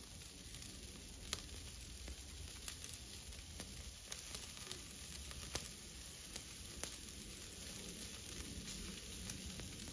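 Chicken drumsticks, sausages and lamb chops sizzling quietly on a charcoal grill over hot coals, with scattered small pops and crackles.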